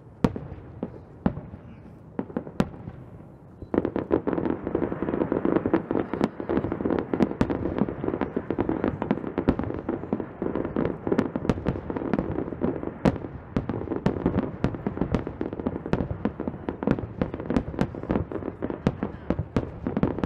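Aerial fireworks display: a few separate shell bursts, then from about four seconds in a dense barrage of rapid bangs over a continuous rumble of overlapping explosions.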